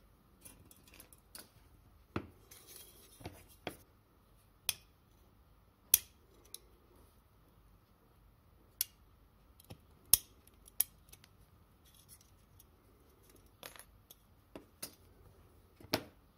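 Pliers and a small wire clip clicking and snapping against a tinplate toy car body: a dozen or so sharp metal clicks at irregular intervals, with a brief scrape about three seconds in. The loudest snaps come about six and ten seconds in.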